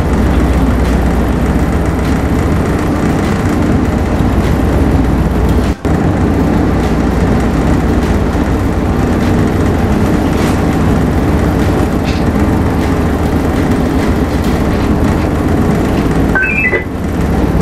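Voith Schneider tug's diesel engines running steadily under load while towing a large ship on a taut line, with a deep, even drone and a brief dropout about six seconds in.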